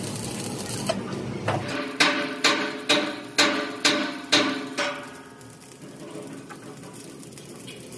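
Arc welding on a steel air compressor tank hissing for about two seconds. Then come seven evenly spaced ringing hammer blows on steel, about two a second, and it turns quieter for the last few seconds.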